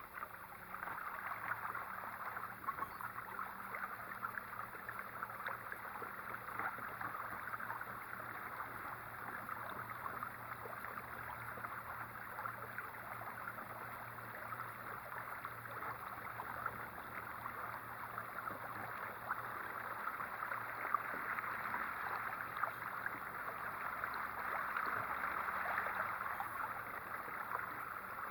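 Water rushing and splashing along a 10-foot kayak's hull as it runs under a 30 lb-thrust electric trolling motor, with a faint steady low hum beneath the water noise.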